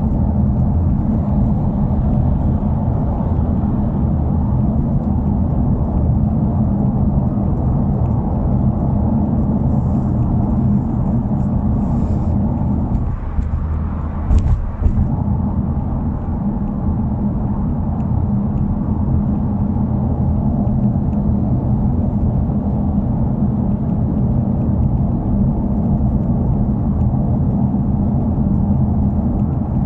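Subaru WRX's turbocharged flat-four engine and exhaust running steadily with a low drone, the muffler's abnormal noise now fixed. About halfway the sound briefly dips and there is a single thump.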